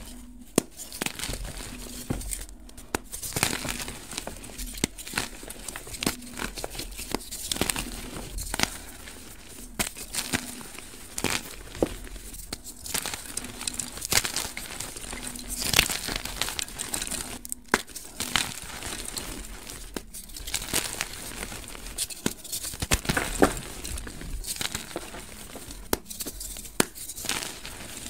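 Hands squeezing and crushing soft blocks of dyed gym chalk, the powdery chalk crunching and crumbling between the fingers in dense, irregular crackles, with a few very brief pauses.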